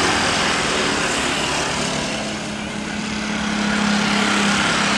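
Airbus A330-200 airliner's twin jet engines at take-off thrust during the take-off roll: a steady roar with a low drone that grows stronger about three seconds in.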